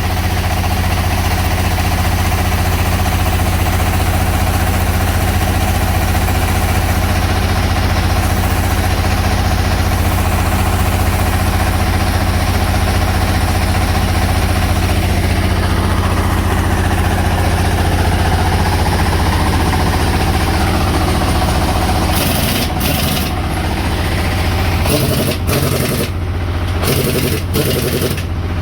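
An engine idling steadily with a deep, even hum. In the last few seconds there are several short, sharp bursts of noise over it.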